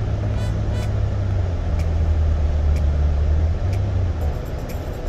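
Car driving on a city road, heard from inside the cabin: a steady low engine and road drone that dips slightly in pitch about a second and a half in, with a few faint ticks.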